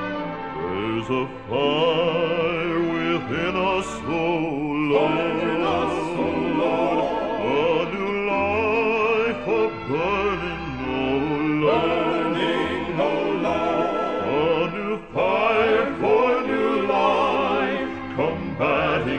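Male gospel vocal quartet singing in a full, classical style with heavy vibrato, held notes swelling and breaking phrase by phrase over steady low accompaniment.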